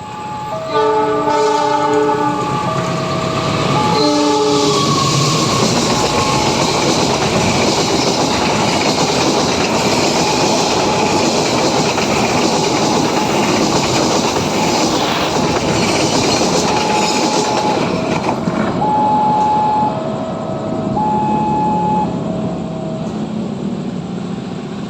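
Kamandaka passenger train sounding its horn in a few blasts, then passing close by with loud wheel clatter on the rail joints that eases near the end as it moves off. Under it, a level-crossing alarm keeps alternating between two tones.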